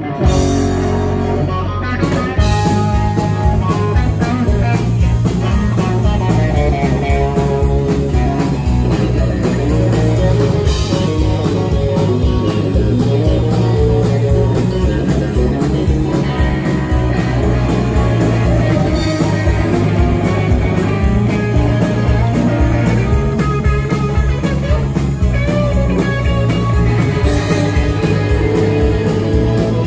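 Live rock band playing loudly through a PA: electric guitar over bass and drums, with the drum beat coming in about two seconds in.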